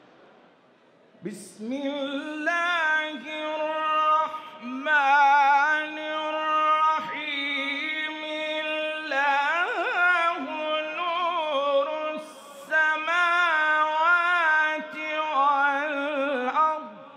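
A man reciting the Quran in the melodic tilawat style, starting about a second in. He holds long notes in several breath-length phrases, with rapid trills and turns and a sharp upward glide about halfway through.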